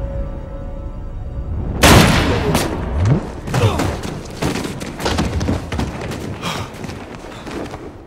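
Action-film soundtrack: dramatic score, then a sudden loud bang about two seconds in followed by a string of heavy thuds and impacts that fade toward the end.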